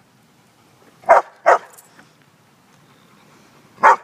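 A dog giving a double bark, two short barks in quick succession, about a second in, and starting another double bark near the end. It is barking for help to get its tennis ball out of a bucket.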